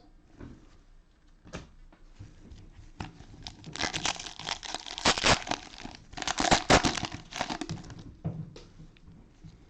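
Cellophane wrapper of a Panini Mosaic football cello pack being torn open and crinkled. There are light handling clicks at first, then two loud spells of crinkling, each about a second and a half long, in the middle.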